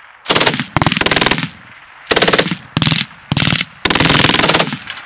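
German MG 3 machine gun firing 7.62 mm belted ammunition in about six short bursts, each a fast rattle of shots, with the longest burst near the end.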